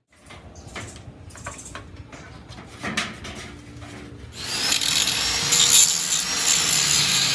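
Workshop tool work on a torque rod bush: a run of metallic knocks and scrapes, then about four seconds in a power tool starts up and runs loud and steady with a high-pitched hiss.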